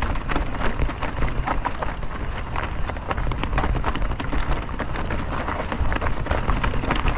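Mountain bike riding down a steep rocky trail: a dense, irregular clatter of tyres hitting rocks and the bike rattling, over a steady low rumble.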